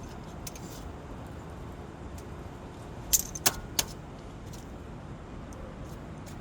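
Three sharp metallic clinks of tools or parts a little past three seconds in, the second ringing briefly, over a steady background noise.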